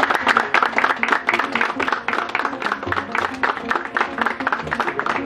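A small group clapping and applauding, many hands at once, over steady background music.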